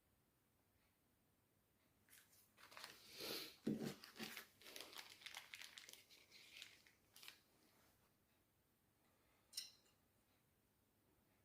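Irregular rustling and scraping lasting about five seconds, then a single short click.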